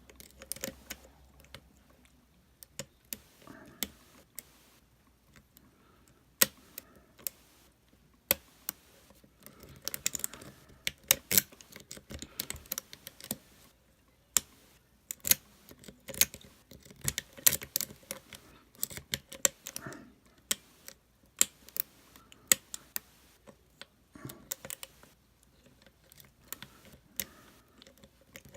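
Lock pick and tension wrench working the pins of a Master Lock LockOut TagOut padlock: irregular small clicks and light scratches, some sharper than others.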